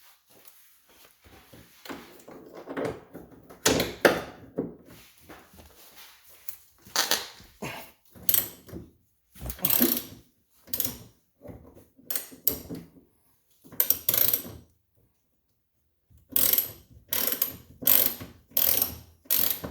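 Hand socket ratchet with a 14 mm socket clicking in repeated short back-strokes, loosening a rear tie bar mounting bolt, with a pause of about a second and a half partway through.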